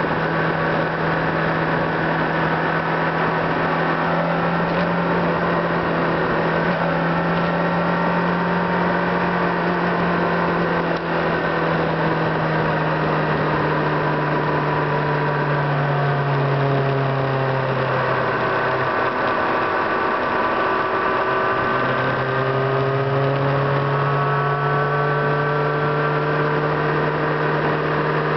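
Car engine and road noise heard from inside the cabin while driving at steady speed. The engine note drops for a few seconds past the middle, then rises again.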